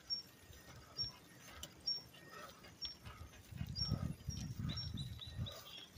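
A large blue-nose pit bull panting quickly as it runs beside a bicycle, the panting strongest in the second half. Faint short ticks come about once a second.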